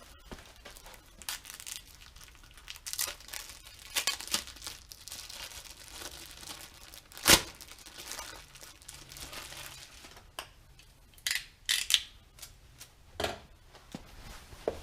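Rustling and crinkling with scattered clicks and knocks as small engine seals and their packaging are handled on the bench, with one sharp click about seven seconds in.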